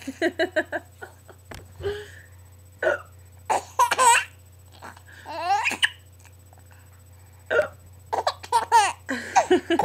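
Baby laughing in bursts of short, quick pulses, with single bursts and pauses between them, broken by hiccups. The laughing has given him the hiccups.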